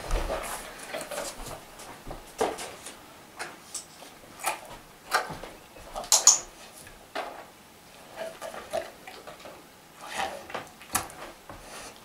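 A young dog moving about during trick training, with small animal noises and about a dozen short clicks and knocks, the loudest about six seconds in.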